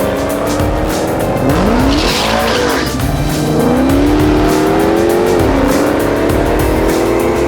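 V8 drag car engine at full throttle, its pitch climbing and dropping back several times as it runs through the gears. Background music with a steady beat plays over it.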